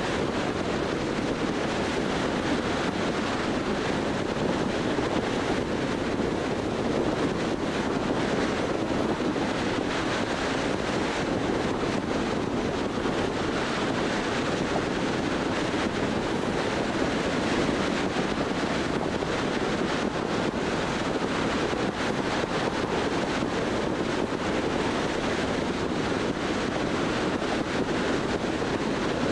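Steady rushing road and wind noise of a car driving at highway speed: tyres on the pavement and air rushing past, even and unchanging throughout.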